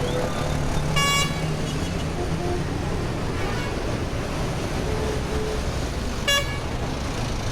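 Steady road traffic noise with two short, high vehicle horn toots, one about a second in and one near the end.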